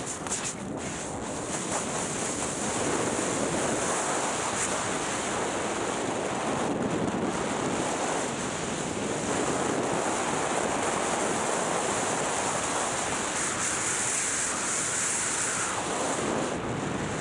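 Skis hissing and scraping over groomed snow on a steady downhill run, mixed with wind rushing over the microphone.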